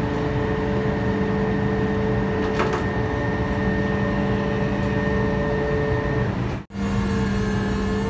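Davit's electric winch running steadily while hoisting a rescue boat: a constant mechanical hum with several steady tones over a low rumble. The sound cuts out for an instant near the end.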